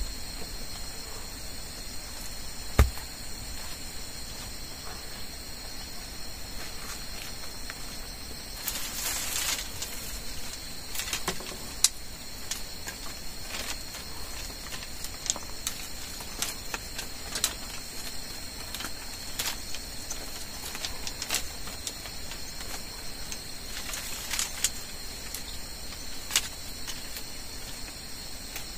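Steady high-pitched chorus of insects, with scattered clicks and knocks of rocks and dry sticks being handled and laid into a hearth. A heavy thump about three seconds in, as a rock is set down, is the loudest sound.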